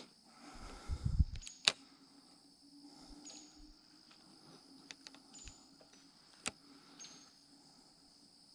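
Steady high-pitched buzz of insects. A few sharp clicks and low handling bumps sound over it, the loudest within the first two seconds.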